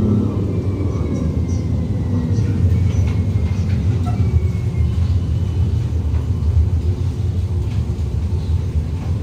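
Interior running noise of a Shenzhen Longhua supercapacitor tram in motion: a steady low rumble, with a faint high whine above it.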